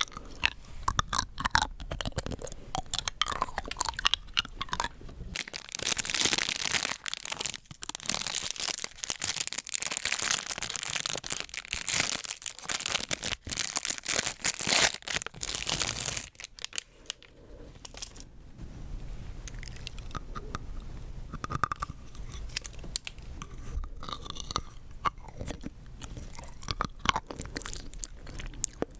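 Rock candy being bitten and crunched close to the microphone: scattered sharp cracks at first, a long stretch of dense, continuous crackling from about six seconds in to about sixteen, then scattered cracks again.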